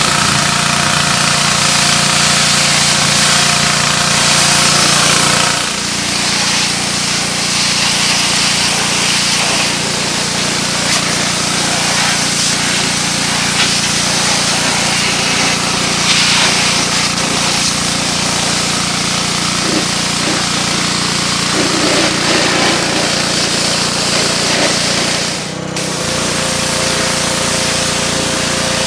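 Simpson 3400 PSI pressure washer running on its small gas engine with a freshly installed replacement pump, together with the steady hiss of water spraying. The sound breaks off briefly about 25 seconds in.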